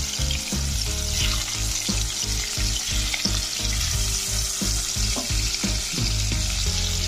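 Hilsa fish steaks sizzling in hot soybean oil in a nonstick kadai, a steady hiss, while a silicone spatula turns and nudges the pieces.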